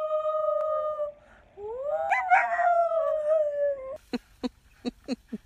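Small dog howling: one long, steady howl that ends about a second in, then a second that rises and slowly falls. Near the end, a quick series of short sharp clicks.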